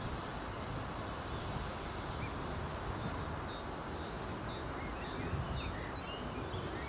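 Steady low rumble of a taxiing airliner's jet engines heard from afar, with small birds chirping in short notes, mostly from about two seconds in.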